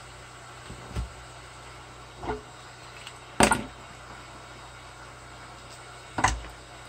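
Four short knocks and clatters of parts and tools handled on a workbench, the loudest a double clack about three and a half seconds in, over a steady low hum and hiss.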